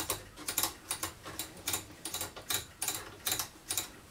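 Rotary waveband switch of a Decca DMR88 valve radio being clicked back and forth through its positions: irregular clicks about three to four a second, some in quick pairs. It is being turned to work freshly sprayed switch cleaner into its iffy contacts.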